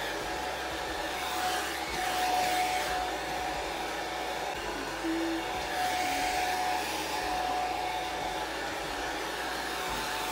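Handheld hair dryer blowing steadily, a thin whine coming and going over the rush of air as it is moved around the head.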